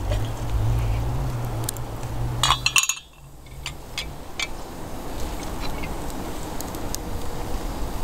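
Metal cookware clinking as a small pot and kettle are handled at a campfire: a cluster of sharp clinks about two and a half seconds in, then a few faint clicks over a steady hiss. A low wind rumble on the microphone runs underneath at first and cuts off suddenly about three seconds in.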